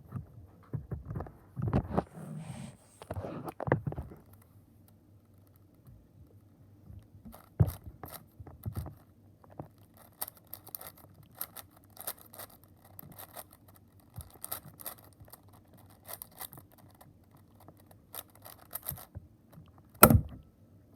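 Plastic 4x4 Rubik's cube being turned quickly by hand: a long run of rapid small clicks and clacks from the layers, with one louder knock near the end.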